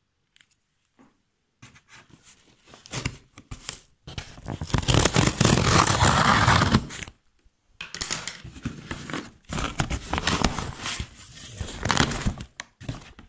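Scissors slitting the packing tape on a cardboard box, the blade scraping and rasping along the tape and cardboard. The sound starts after a second or so of quiet, is loudest about four to seven seconds in, breaks off briefly, then goes on in shorter scrapes.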